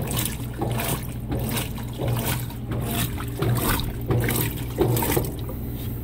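Consul top-load washing machine filling with water over a load of jeans: water pouring and splashing into the tub in uneven surges, with a steady low hum underneath.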